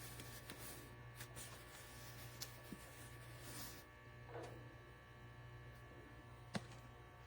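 Faint steady electrical hum with a few soft clicks and a brief rustle.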